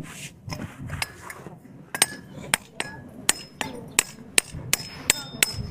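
Hand hammer striking metal in a steady series of about a dozen blows, roughly two or three a second, the later blows ringing clearly, as an old hammer's head is driven and wedged onto its handle.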